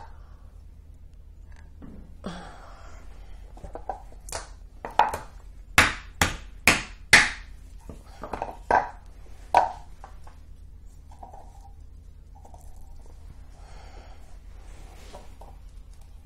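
A run of sharp knocks and taps, about eight strong ones clustered in the middle, as a wooden painting board is tipped up and knocked back down on the table, with push pins under it to level it.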